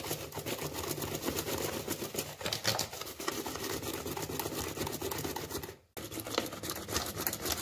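Small wire hand whisk beating eggs and sugar in a plastic bowl: a fast, continuous scratchy rattle of the whisk against the bowl and gritty sugar. It cuts out for a moment about six seconds in, then goes on with the mixture now blended smooth.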